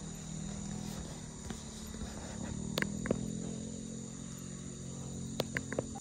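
Insects chirping steadily in the background, over a low steady hum, with a few faint clicks.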